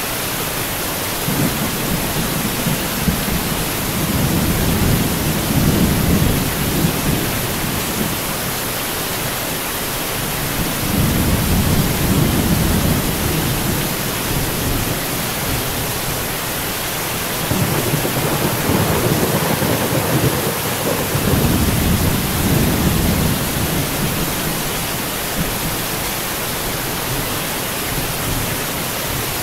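Steady rain with three long, low rolls of thunder that swell and fade over several seconds each.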